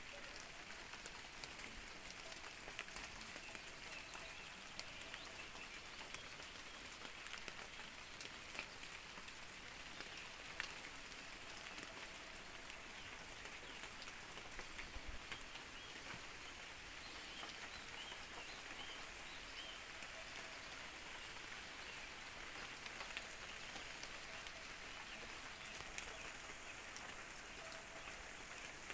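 Steady rain falling, a dense run of small drop ticks.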